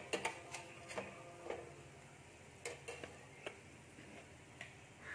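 Scattered light clinks and taps on a metal cooking pan, about ten in all, at uneven intervals as tamarind and salt are put in with the fried carrots and green chillies.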